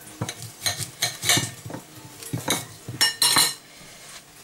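A kitchen knife clinking and scraping on a ceramic plate while a lemon is cut and handled: a scatter of sharp clicks and knocks, quieter near the end.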